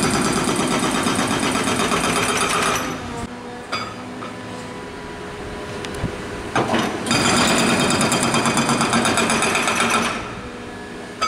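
Jackhammer-type breaker pounding pavement in rapid strokes, in two bursts of about three seconds each, with quieter machinery running in between.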